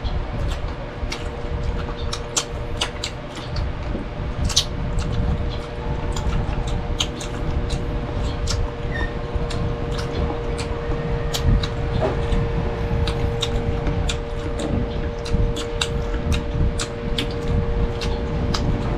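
Close-miked mukbang eating: chewing with many irregular sharp clicks and smacks, over a steady low hum.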